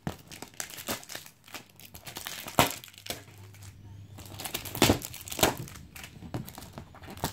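Plastic wrappers of Panini trading-card packets crinkling as they are peeled off a multipack's cardboard backing and handled, with a stream of small crackles and a few sharper ones about two and a half and five seconds in.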